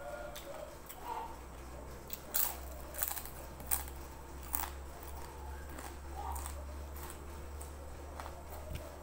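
Close-up eating sounds of a person chewing crisp fried food, with several sharp crunches between about two and five seconds in. A steady low hum runs underneath.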